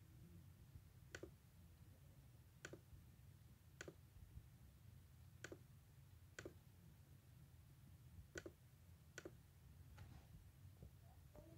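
Faint computer mouse clicks, about seven single sharp clicks spaced unevenly a second or so apart, over a low steady hum.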